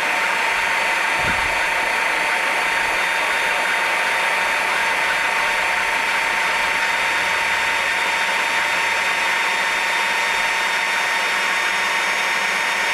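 Magnetic base drill running steadily while drilling into a steel plate, its motor giving a constant whine, with a brief low thump about a second in.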